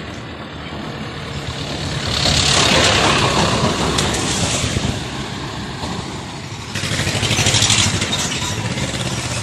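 Road vehicles passing close by: engine and tyre noise swells loudly about two seconds in and again about seven seconds in, the second pass a truck with a steady engine note.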